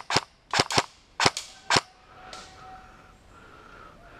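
Airsoft gun firing about seven sharp shots in under two seconds, most in quick pairs, with a last fainter shot just after.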